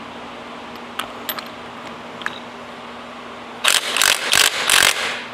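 Cordless impact wrench running in four quick bursts on a socket seated in a hydraulic quick-coupler block, breaking the coupler loose to unscrew it. A few light metal clicks from handling the parts come before it.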